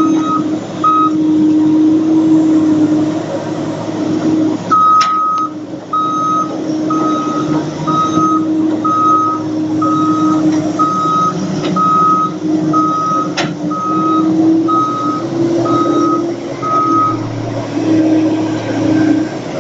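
Reversing alarm on a Bobcat T2566 telehandler beeping about once a second over the steady running of its diesel engine. The beeping stops about a second in and starts again about five seconds in.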